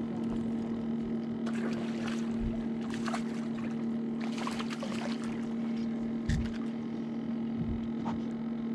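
Steady hum of an electric trolling motor holding the fishing boat, with scattered short rustles and knocks as a fish is reeled to the boat and landed.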